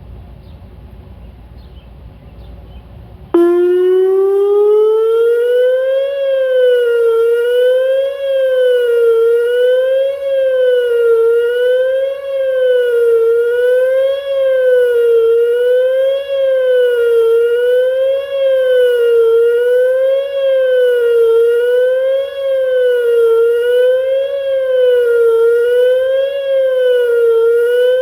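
Whelen WPS 2910 electronic outdoor warning siren switching on suddenly about three seconds in, gliding up in pitch, then wavering up and down about once every two seconds: the attack signal of a siren test.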